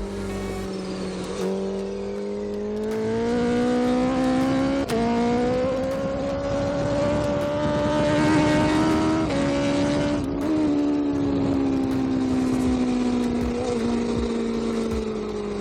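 BMW S1000RR inline-four through an Akrapovic GP-style short slip-on exhaust, rising in pitch under throttle, with a sudden drop about five seconds in like a gear change. It climbs again, then falls away steadily from about ten seconds in.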